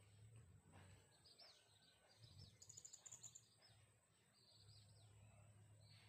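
Faint birdsong: a few short high chirps, with a quick rapid trill about halfway through, over a quiet background with a low hum.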